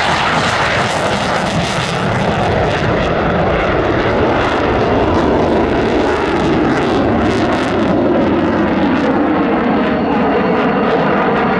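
USAF F-15C Eagle's twin jet engines, loud and steady, the pitch falling slowly as the jet flies past.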